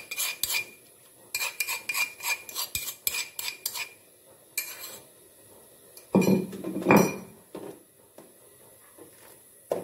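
Ground spice paste being scraped out of a mortar into a wok: quick scraping and tapping strokes, about five a second, in two runs. Louder, duller knocks follow around six to seven seconds in.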